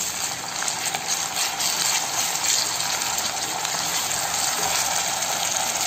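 Onions and ginger-garlic paste sizzling steadily in hot oil in a kadai, stirred with a wooden spatula.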